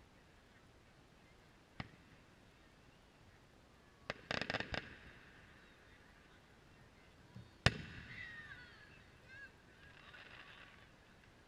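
Distant amateur fireworks: a single sharp pop, then a quick string of about half a dozen firecracker cracks about four seconds in, then a louder single bang past the middle. Faint high, wavering sounds follow the bang.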